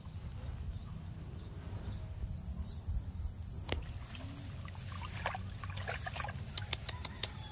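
Water trickling along a rice-paddy irrigation ditch under a steady low rumble, with a scatter of short rustles and clicks in the second half.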